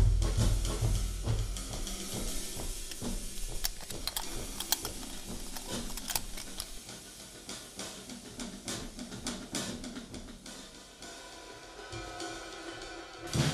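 Background music with a drum kit: the low beat fades after the opening into a quieter, sparser passage of hi-hat and cymbal ticks.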